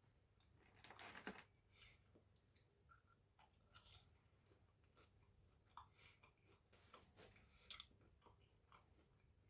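Faint close-up chewing: soft crunches and wet mouth clicks at irregular moments, a few a little louder than the rest.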